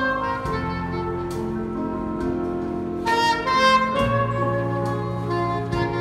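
Live jazz band: a soprano saxophone plays a melody of sustained notes over electric keyboard, electric bass and drums, with several cymbal strikes.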